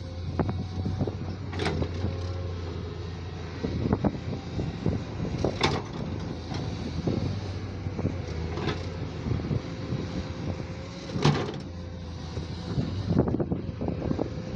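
JCB digging machine's diesel engine running steadily under load, with a faint steady whine and a few sharp knocks and clanks from the working machine.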